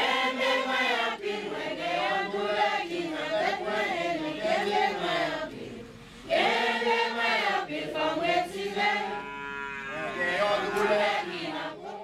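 A crowd of villagers singing a song together, with no instruments, their voices rising and falling in phrases. There is a brief lull about six seconds in before the singing picks up again.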